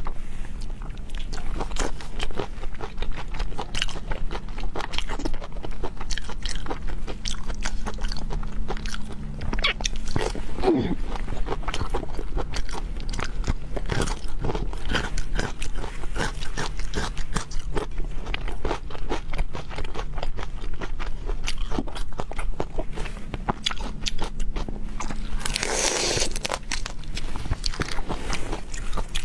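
Close-miked eating of seafood: crunchy biting and wet chewing in quick, irregular clicks, with a louder crunch or slurp about 26 seconds in. A steady low electrical hum runs underneath.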